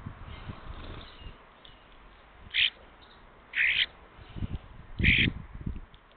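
A bird calls three times in short, loud calls spaced about a second apart, over low thuds and rumble.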